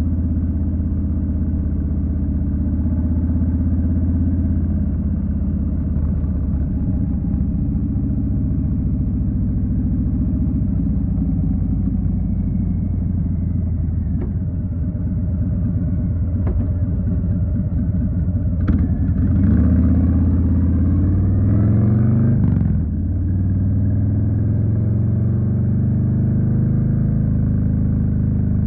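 2020 Harley-Davidson Street Bob's Milwaukee-Eight 107 V-twin running under way. About two-thirds of the way through it revs up for a few seconds, pitch rising, then drops off abruptly, and it settles back to a steady run.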